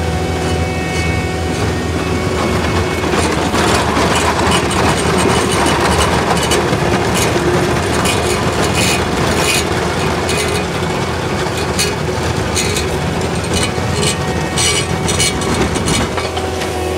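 Asphalt cold milling machine running and cutting: a steady engine drone under the dense grinding of the cutting drum, with many sharp ticks and clatter of asphalt chips from about three seconds in until near the end.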